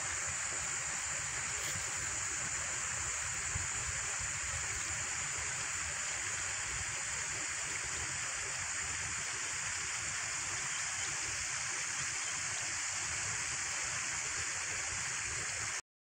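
Steady rushing hiss of a stream-like nature ambience with a thin high whine over it, even throughout, that cuts off abruptly near the end.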